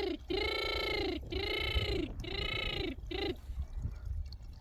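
An animal calling four times in quick succession, each call a drawn-out cry under a second long that rises and falls in pitch, the last one cut short.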